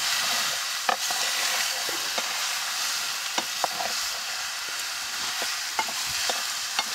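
Meat frying with a steady sizzle, with scattered clicks of a utensil stirring it.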